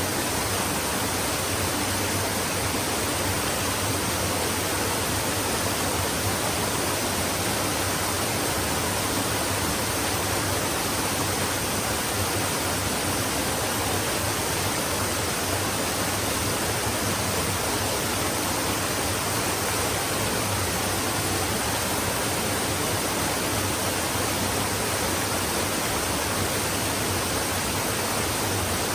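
Flowing stream: a steady, even rush of water that does not change.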